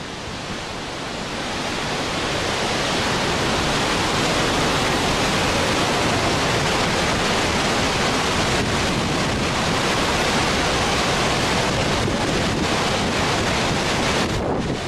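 Steady rushing of muddy floodwater pouring over a low weir and churning downstream, louder from about two seconds in, with wind buffeting the microphone.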